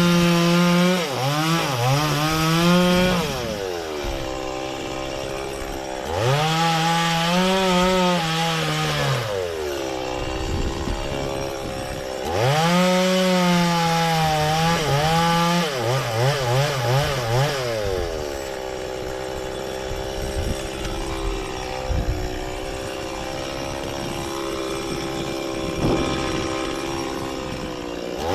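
Stihl chainsaw revving up and cutting into frangipani trunk wood in three bursts of a few seconds each, its pitch sagging and stuttering as the chain loads up in the cut. Between cuts and for about the last ten seconds it drops back to a steady idle.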